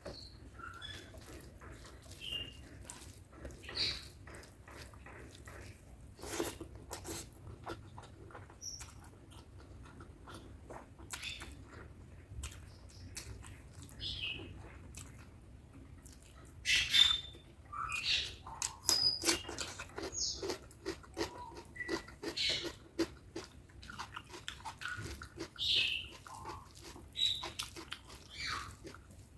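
Close-miked eating sounds of spicy chicken curry and basmati rice: chewing with many wet mouth clicks and smacks, thicker and louder from a little past halfway.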